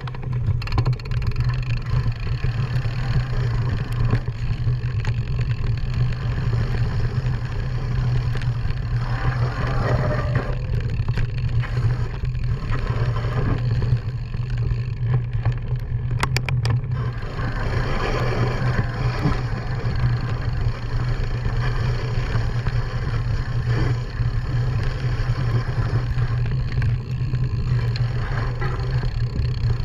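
Mountain bike riding fast downhill on a dirt trail: steady wind rush on the camera microphone with tyre noise and the bike rattling, and scattered sharp clicks and knocks from bumps.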